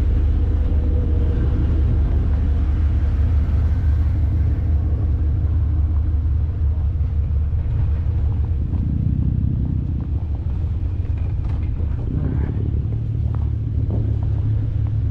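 Diesel truck engine idling, a steady low rumble, with a few faint clicks in the second half.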